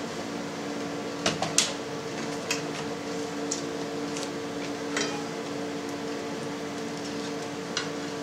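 Light knocks and taps as a pressed cheese is handled, turned over and set back into a plastic cheese mould on the stainless press tray. The loudest come in a quick cluster about a second and a half in, with a few single taps after. A steady machine hum runs underneath.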